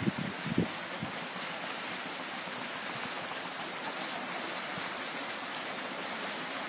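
Steady rushing of a muddy river in flood, with a few low thumps of wind on the microphone in the first second.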